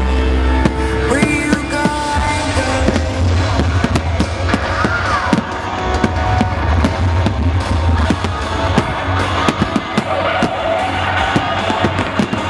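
Fireworks bursting and crackling in rapid, irregular succession over loud music, the bangs growing denser from about two seconds in.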